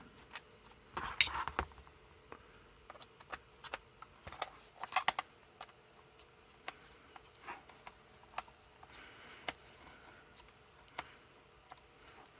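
Scattered small metallic clicks and taps, with a few brief scrapes, from a screwdriver and the door latch's metal and plastic parts being handled while the last screw is driven into the latch housing.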